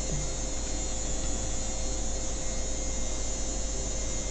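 Steady background hum and hiss with a faint constant tone, unchanging throughout, with no distinct events.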